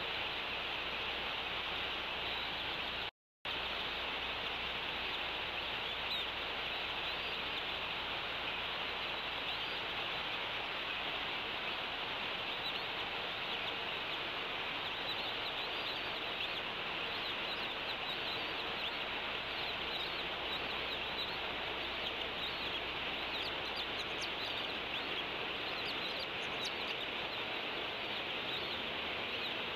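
Steady outdoor background hiss picked up by a nest-cam microphone, with faint small-bird chirps in the second half. The sound cuts out completely for a moment about three seconds in.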